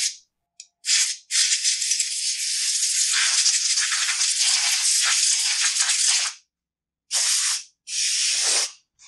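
Compressed-air blow gun blasting dirt out of an opened chainsaw housing: a short blast, a long hiss of about five seconds, then two shorter blasts near the end.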